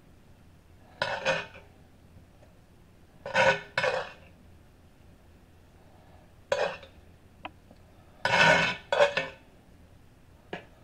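A metal spoon scraping and clinking against a cast-iron skillet and a metal springform pan as crumbled cooked ground meat is scooped and spread, in short separate scrapes every second or two, with one sharp click among them.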